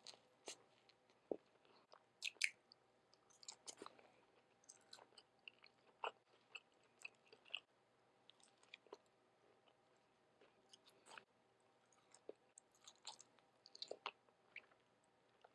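Close-miked chewing and mouth sounds of someone eating, heard as many short, irregular wet clicks and small bites spread through the whole stretch.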